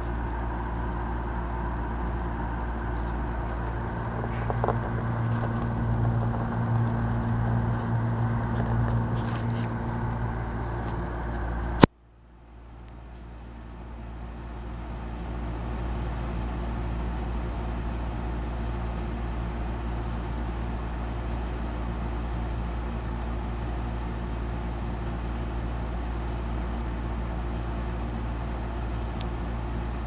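Amana PTAC air conditioner running with a steady hum. About twelve seconds in there is a sharp click, the sound cuts out, and then it builds back over a few seconds to a steady, slightly smoother hum.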